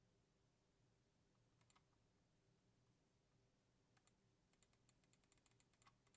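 Near silence, broken by faint keyboard typing clicks: a couple about two seconds in, then a quick run of taps from about four seconds in.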